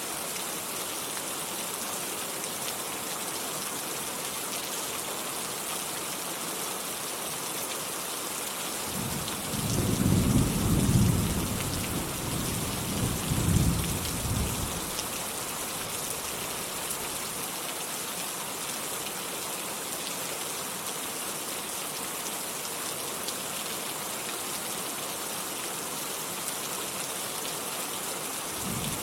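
Steady rain falling, with a roll of thunder rumbling low from about nine seconds in for some six seconds before fading back to rain alone; another thunder roll begins at the very end.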